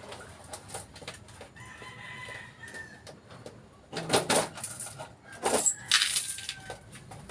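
A chicken calls in the background, with a few loud, harsh, noisy bursts in the second half.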